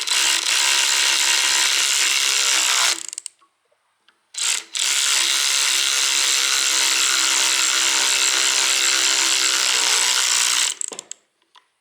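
Electric power tool driving two jacking bolts into a pulley's SD-type split taper bushing to push it apart and free it from the shaft. It runs in two steady bursts, about three seconds and then about six seconds long, with a short pause between.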